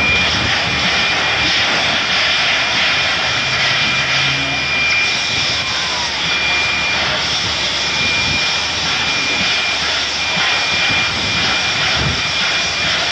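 Standing steam locomotive 3801, a streamlined NSWGR C38-class Pacific, letting off steam in a steady, loud hiss.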